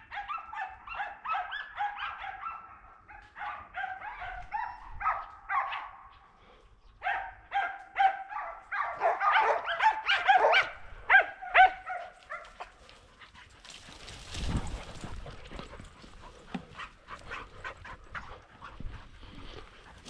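A pack of boar-hunting dogs baying in rapid, overlapping barks and yelps. The calls break off briefly about six seconds in, then fade out about twelve seconds in. A short burst of noise and scattered clicks follow.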